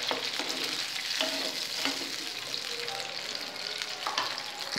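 Potato curry (aloo chorchori) bubbling and sizzling in oil and water as the liquid comes to the boil: a steady hiss with scattered crackles.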